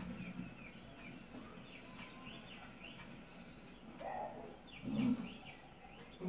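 Small birds chirping over and over over a quiet savanna background, with a short low animal grunt about five seconds in.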